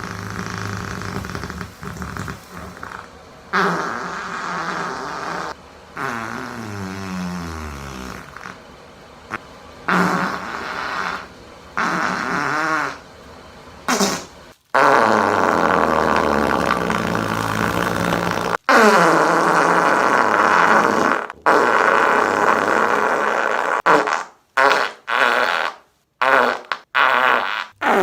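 A string of fart sound effects: long, pitched, sputtering farts whose pitch wavers and some slide downward, with short gaps between them, then a quick run of short farts near the end.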